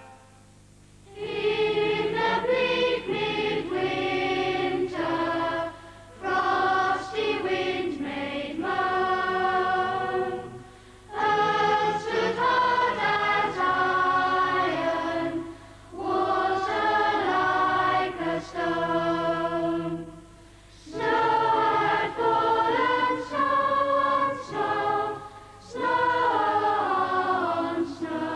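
A choir singing, starting about a second in and going on in phrases a few seconds long with short breaks between them.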